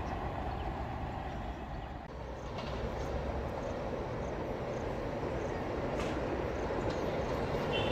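Rumble of express trains approaching from a distance along the line. About two seconds in, the sound changes abruptly to a second approaching train, whose rumble slowly grows louder.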